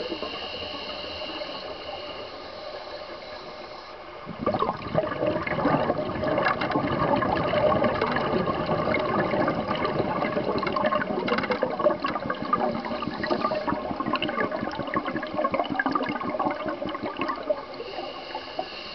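Underwater sound of scuba exhaust bubbles from a diver's regulator, a dense bubbling and crackling that starts about four seconds in and fades near the end. Before it there is a quieter steady hiss with a faint high whine.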